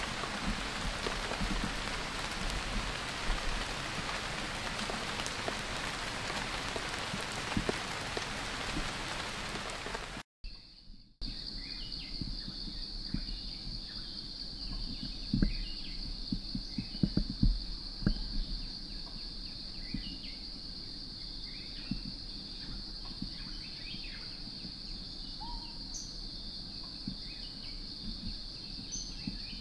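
Steady rain falling, cut off suddenly about a third of the way in. Then a steady high-pitched insect drone with faint scattered bird chirps, and a cluster of sharp knocks about halfway through that are the loudest sounds.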